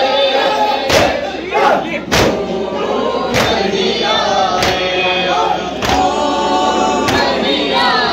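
A noha sung by a group of men over a loudspeaker, with a crowd of mourners beating their chests (matam) in unison: a loud slap about every second and a quarter, keeping time with the chant.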